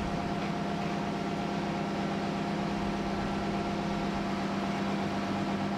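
Transit bus idling at the stop, a steady hum with a low tone.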